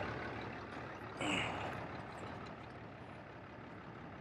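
Pickup truck engine idling steadily, with a short rattling burst about a second in.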